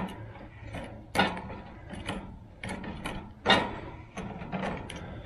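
Perforated metal slotted spoon scraping and clinking against the steel bowl of molten pewter as the slag is skimmed off, in a run of irregular taps and scrapes.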